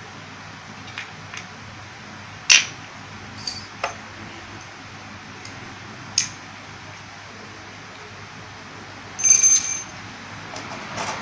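Small metal parts of a vape box mod and hand tools being handled: scattered clicks and taps, a sharp click about two and a half seconds in, and a short ringing metallic clink near the end, over a steady background hiss.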